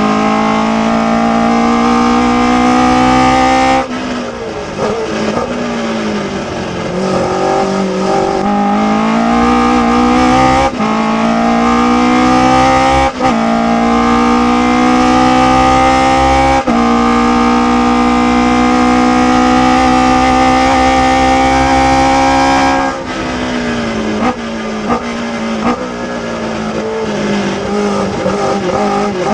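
Ginetta G16 sports racer's engine, heard from the open cockpit, pulling hard at full throttle and climbing in pitch through the gears, with about four quick upshifts. Near the end the throttle closes and the engine note drops under braking, with short blips on the downshifts.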